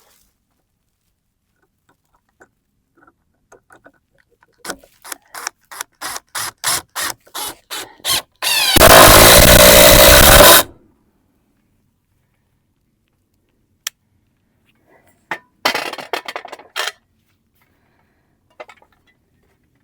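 A run of about a dozen short, evenly spaced tool strokes, about three a second, then a power tool running loudly for about two seconds, followed later by a brief cluster of further strokes.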